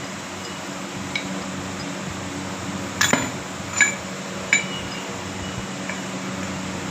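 Metal parts and tools clinking and tapping against each other: five short, sharp metallic clinks, the loudest about three seconds in. A steady low hum runs underneath.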